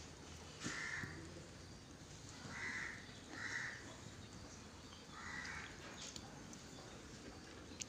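Four short, faint animal calls spread over several seconds, over low background noise.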